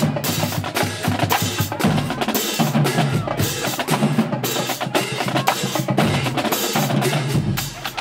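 Marching band drumline playing a cadence: snare drums striking rapid patterns over a repeating bass drum pattern.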